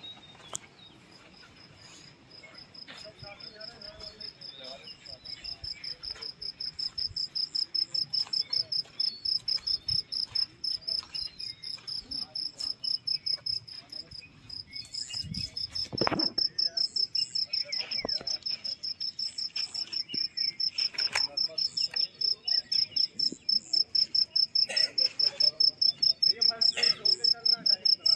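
A cricket chirping steadily in rapid high-pitched pulses, about three chirps a second, growing louder over time. A brief low thump comes about halfway through.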